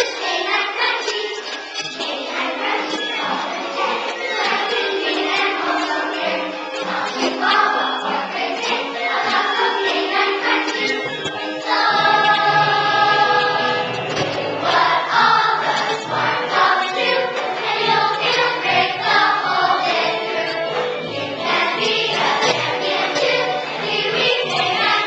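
A choir singing a song, with a long held chord about halfway through.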